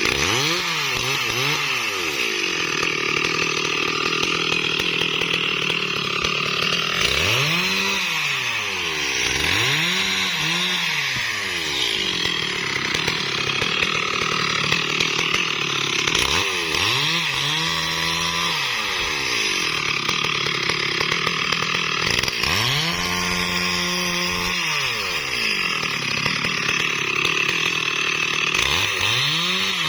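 STIHL MS 382 two-stroke chainsaw cutting into a bayur (wadang) tree. The engine revs up and drops back about six times over a steady loud cutting noise.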